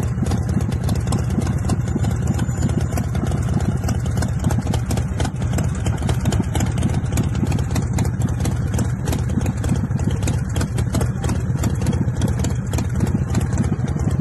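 Custom chopper motorcycle's engine idling steadily, a fast even stream of exhaust pulses with no revving.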